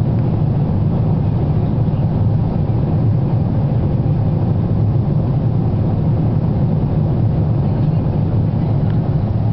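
Boeing 777-200 airliner cabin noise in cruise flight: a steady, low rushing drone of engines and airflow heard from a window seat.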